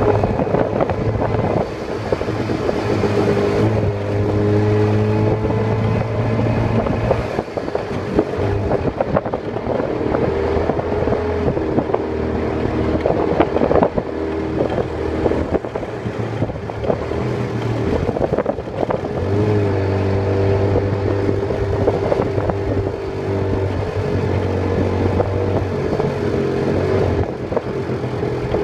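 Tuk-tuk's small engine running as it drives through town traffic, heard from the open passenger cab, its note rising and falling as it speeds up and slows, over wind and road noise.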